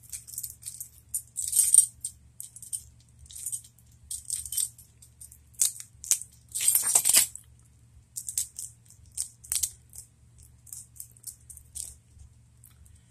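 Plastic shrink-wrap on a card deck crinkling and clicking in irregular bursts as it is picked at and torn off with a tool, with a louder flurry about a second and a half in and another around seven seconds.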